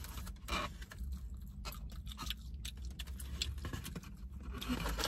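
Paper food wrapper crinkling and rustling as it is handled and opened, a run of irregular small crackles.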